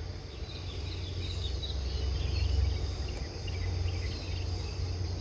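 Outdoor rural ambience: faint, scattered short chirps from small birds or insects over a steady low rumble.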